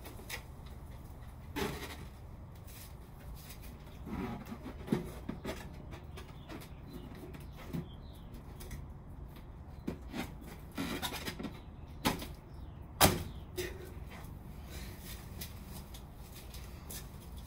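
Scattered rustles, clicks and knocks from handling a balloon and its cardboard glider on a string launcher. The loudest is a single sharp knock about thirteen seconds in.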